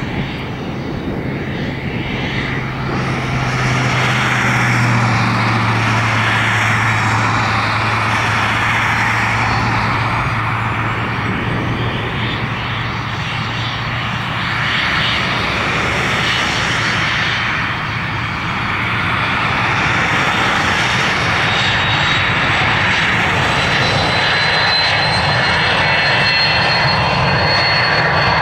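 Twin turbofan engines of a Cessna 560 Citation business jet running up for takeoff: a steady, loud jet noise that grows louder about four seconds in. Through the takeoff roll, a thin high turbine whine climbs slowly in pitch.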